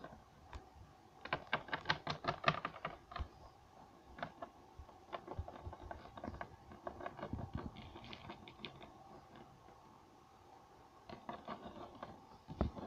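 Light clicks and taps of small plastic Littlest Pet Shop figures being handled and moved on a tabletop, a quick run of them about a second in and scattered ones after.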